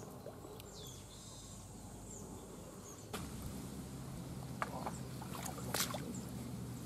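Faint outdoor ambience of shallow muddy water, with light water movement as a turtle is set down in it, and a few short high chirps and ticks. A low steady hum comes in about three seconds in.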